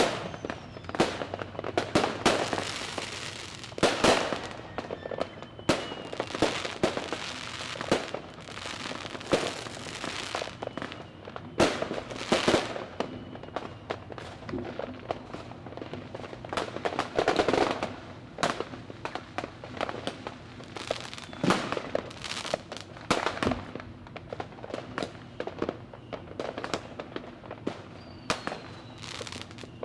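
Fireworks going off: a continuous run of sharp bangs and crackling reports, with denser clusters of crackle every few seconds and a few faint falling whistles.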